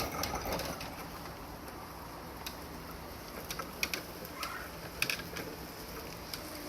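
Faint steady low hum of the target's 24 V wheelchair motor assembly driving it along, with a few light clicks and ticks scattered through.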